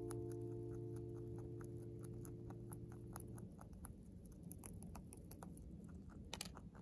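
A rabbit chewing hay close to the microphone: a quick, even run of small crunching clicks.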